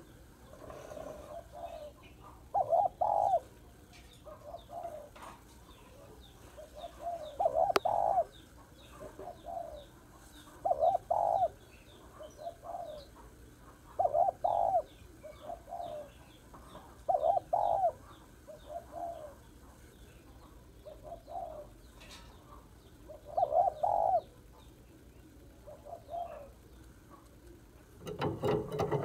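Spotted dove cooing: short phrases of a softer coo followed by a louder double coo, repeating every three to four seconds, with small birds chirping faintly behind. Near the end there is a brief rustle.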